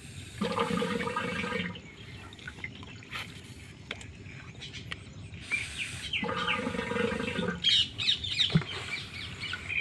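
Two drawn-out, steady animal calls, each over a second long and about five seconds apart, with small birds chirping in the last couple of seconds.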